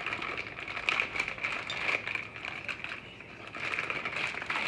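Light clicks and rustling of parts being handled, over a steady background hiss.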